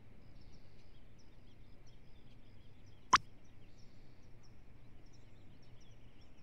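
Faint high twittering chirps in the background, with one short, sharp click about three seconds in.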